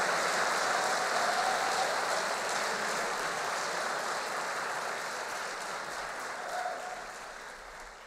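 Audience applauding, fading steadily out toward the end.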